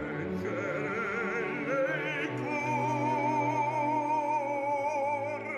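Operatic bass singing with orchestral accompaniment: a moving phrase, then from about two and a half seconds in a long held note with a wide vibrato.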